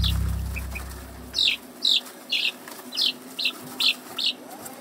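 Young domestic chickens (growing chicks) peeping in a coop: a run of short, high chirps, about two a second.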